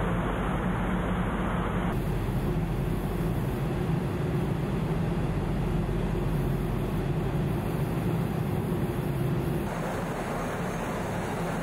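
Steady low hum of a moored car ferry's running machinery, heard on its open deck with wind noise over it. The mix shifts abruptly about two seconds in and again near the end.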